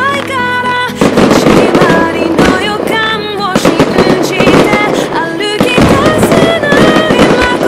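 Aerial fireworks bursting and crackling in dense volleys, mixed with a music track.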